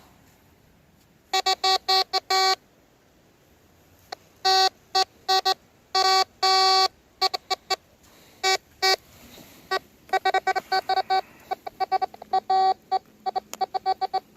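Tesoro Mojave metal detector giving repeated beeps of one steady buzzy tone. Some are short blips and some are held for up to about a second, in irregular clusters, as it signals metal under the search coil.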